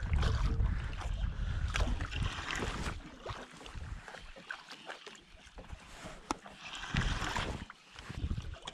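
Wind rumbling on the microphone for about the first three seconds, then water lapping around a small fishing boat, with scattered clicks and knocks.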